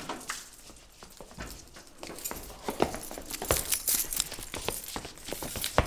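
Irregular metallic clicks and light knocks of hand tools, a breaker bar and socket worked on a seized spark plug, coming thicker from about two seconds in.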